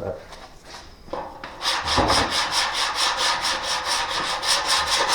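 Sanding block rubbed quickly back and forth across a car body panel, starting about one and a half seconds in, to check a dented area for low spots.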